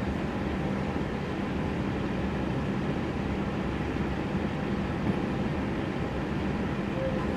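Steady hum and rumble inside an electric passenger train carriage standing at a station platform, with a constant low tone running under it.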